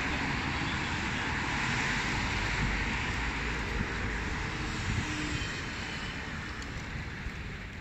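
Steady roar of city street noise, slowly easing off.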